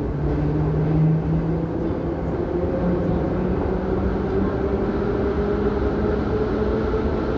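81-717.5A/714.5A metro train heard from inside the passenger car while moving: a steady rumble of wheels and running gear with low motor whines that drift slowly in pitch.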